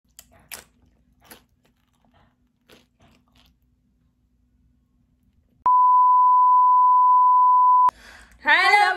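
Faint crunching of tortilla chips being bitten and chewed, then a loud, steady bleep tone for about two seconds, cutting off abruptly; a voice follows near the end.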